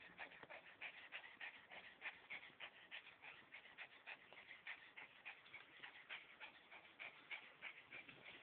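Faint, quick, irregular clicks and snuffles, several a second, from an old Bichon Frise right against the microphone.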